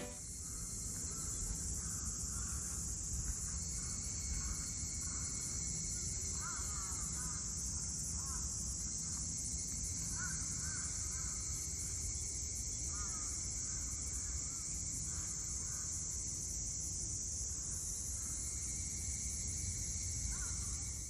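Woodland ambience: a steady, high insect drone, with short bird calls scattered through the middle and a low background rumble.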